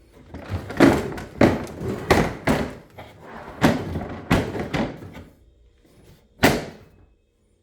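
Hard plastic Ryobi LINK tool boxes knocking and thunking as they are handled and pushed onto the stack to latch, a quick string of knocks followed by one sharper knock near the end.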